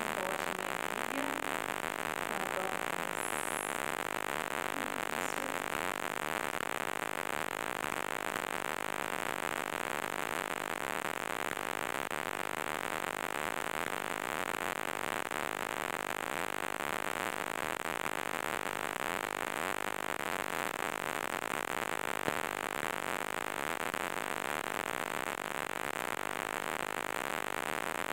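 Steady static hiss with no clear tones or speech.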